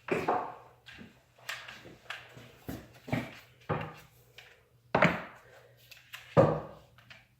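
Irregular knocks, clunks and rustling of tools and objects being handled and set down on a wooden workbench, the loudest clunks about five and six and a half seconds in, over a faint low hum.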